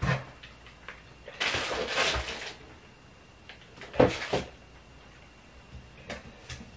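Handling noises while unpacking. Packaging rustles about a second and a half in, a sharp knock comes about four seconds in and is the loudest sound, and a few light clicks follow near the end as a phone is set into the tripod's phone clamp.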